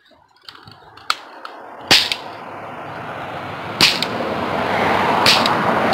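Toy cap gun loaded with a plastic ring of caps: a few light clicks as the ring is fitted, then three sharp cracks about one and a half to two seconds apart. A hiss builds up behind the shots.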